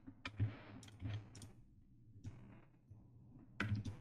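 Computer keyboard keys and mouse buttons clicking while a 3D model is edited: scattered sharp clicks through the first second and a half, one more a little after two seconds, and a quick cluster of three near the end.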